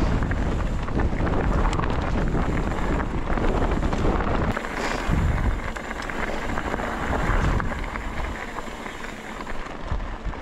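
Wind buffeting the microphone over the rolling crunch and rattle of an Ibis Ripley mountain bike's tyres on loose, rocky dirt trail, with a heavy low rumble.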